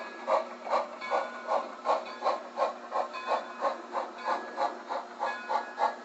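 On30 narrow-gauge model steam locomotive's sound decoder chuffing steadily, about three chuffs a second, as the engine moves slowly along the track.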